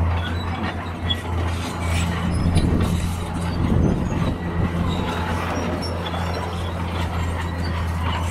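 Large Sunward crawler excavator's diesel engine running with a steady low hum under load, with rock clattering and rumbling louder around the middle as the bucket dumps its load into a dump truck's steel bed.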